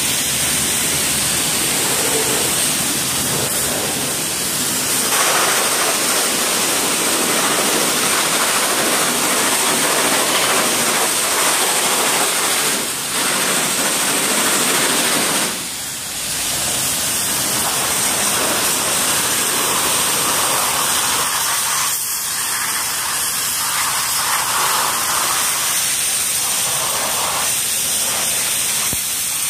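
Pressure washer jet spraying with a steady hiss of water blasting mud off a 1/5-scale gas RC truck's wheels and chassis, broken briefly twice near the middle.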